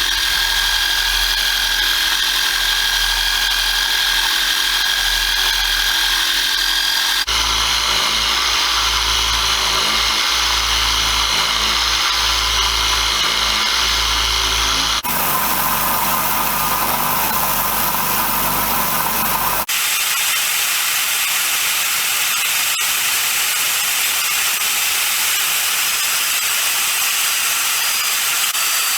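Power tools running a homemade random orbital sanding attachment, a steady motor whine with the hiss of sanding. The sound changes abruptly three times, and the last part is a steadier hiss without the whine.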